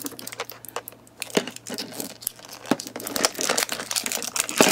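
Thin clear plastic wrap crinkling and tearing as it is peeled by hand off a plastic capsule ball, in irregular crackles, with a few sharper ones, the loudest near the end.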